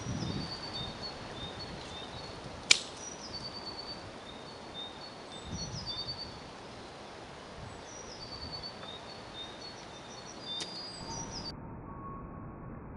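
A three-piece takedown atlatl dart strikes home beside the target with one sharp smack, the loudest sound, a few seconds after the throw. Small birds sing repeated short chirping phrases throughout.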